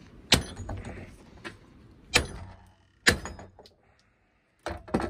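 Heavy hammer striking a steel socket set in a BMW E36 rear wheel hub to drive the hub out of the trailing arm: five sharp metallic blows with a short ring, unevenly spaced, the last two in quick succession.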